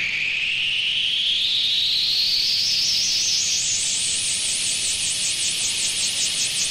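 Synthesizer noise sweep on a rock record: a hissing whoosh that rises steadily in pitch, then about four seconds in turns into a quick pulsing warble, about four pulses a second.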